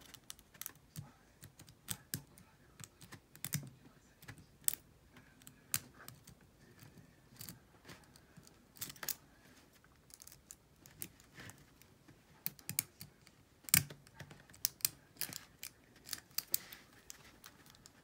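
Small, irregular metallic clicks and scrapes of a steel lock pick working the pins inside an old Taylor padlock's keyway while a tension bar holds light turning pressure, with one sharper click about fourteen seconds in.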